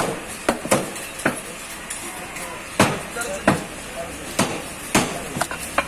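Butchers' cleavers chopping beef on wooden blocks: about ten sharp, irregularly spaced strikes, with a faint clink of metal. Market voices murmur behind.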